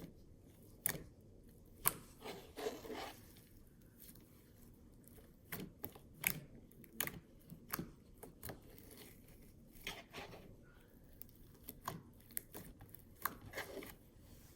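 Blue icee slime being handled by hand: irregular sharp crackles and clicks with softer squishy sounds in between, a dozen or more over the stretch.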